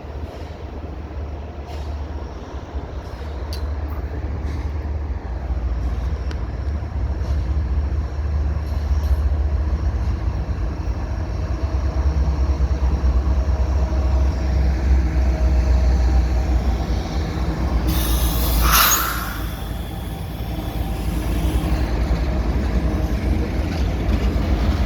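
Diesel freight locomotives (a CN ET44DC leading, an ES44AC and a GP38-2W) running at low restricted speed as the train approaches and passes, a deep engine rumble that grows louder. About three quarters of the way through there is a brief sharp hiss.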